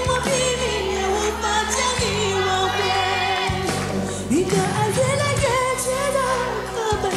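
A female pop singer singing a lyrical Mandarin ballad with a band accompaniment of sustained bass notes and light cymbals.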